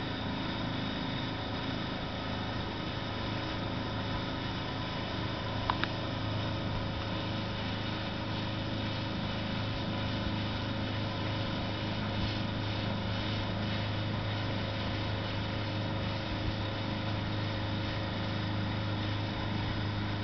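A rigid inflatable boat's engine running steadily under way, a constant drone with the rush of water from the hull. There is a brief click about six seconds in.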